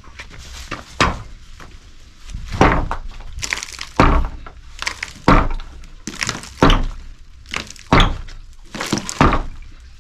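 A run of heavy thuds, about seven evenly spaced strikes roughly one every second and a half, each with a brief rasping tail.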